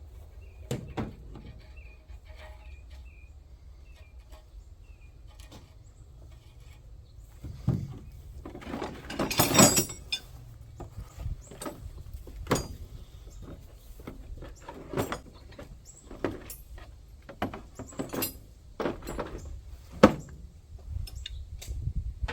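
Scattered metal clicks and knocks of hand tools and hardware as a nut is fitted and tightened on a 7/8-inch bolt in a mini excavator's pivot joint, with a denser burst of noise about nine seconds in and a sharp knock about twenty seconds in.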